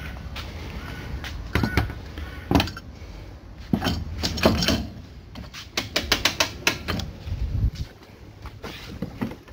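Knocks and clicks of a square steel winder handle being fitted into the roof-winch socket of a pop-top camper, with a quick run of clicks about six seconds in.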